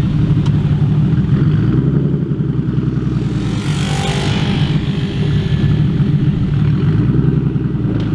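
Japanese performance car's engine running at a steady low speed with a loud exhaust, its pitch holding level without revving. A brief swell of hiss rises and fades about four seconds in.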